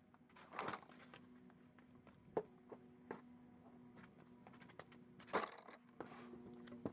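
Several short, sharp clicks and knocks, the loudest about half a second and about five and a half seconds in, over a faint steady hum.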